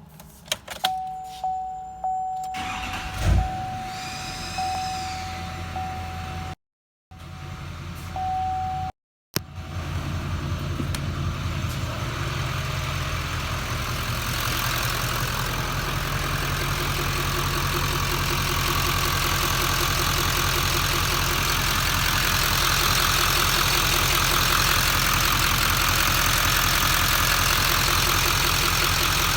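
2015 Duramax LML 6.6-litre V8 turbodiesel, silent at first with a few clicks and a steady tone, then running at idle from about a third of the way in. Over the idle there is a hissing whistle that the owner takes for an exhaust leak after an EGR delete and intake bridge pipe install.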